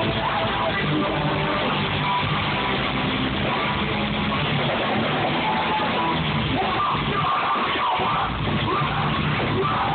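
Live rock band playing a song, with electric guitar prominent in a dense, continuous mix.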